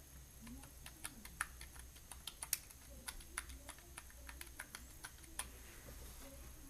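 Keys of an Onn USB numeric keypad being pressed in quick, irregular succession: quiet, short clicks.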